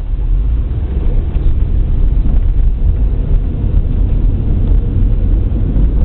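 Car driving along a rough, worn asphalt road, heard from inside the cabin: a loud, steady, deep noise of tyres and engine.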